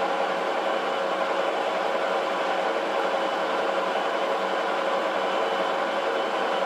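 Metal lathe running under power feed during a thread-cutting pass, its carbide tool cutting a 3 mm-lead thread on a 24 mm steel shaft. A steady mechanical hum and gear whine with a few held tones, unchanging throughout.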